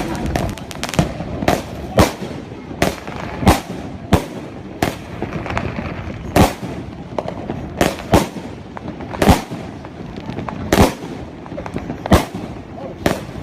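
Fireworks and firecrackers going off: separate sharp bangs at uneven intervals, about one a second, some louder and closer than others.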